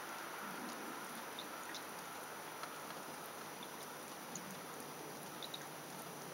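Quiet outdoor ambience in falling snow: an even, faint hiss with a few brief high-pitched ticks scattered through it.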